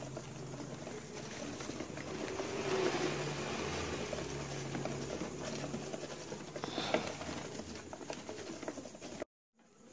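Syrian hamsters scurrying through loose shavings bedding: a dry rustling with quick little patters and scrabbles, over a low steady hum. The sound cuts out suddenly for a moment near the end.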